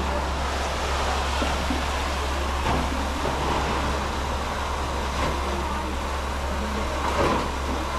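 Steady engine-like hum under an even noisy hiss, with no clear strokes or changes.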